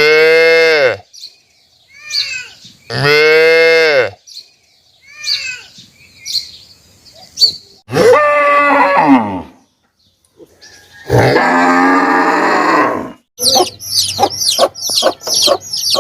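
Cattle mooing: several long, drawn-out moos with shorter calls between them, one of the moos falling in pitch. Near the end comes a quick run of short, high-pitched calls.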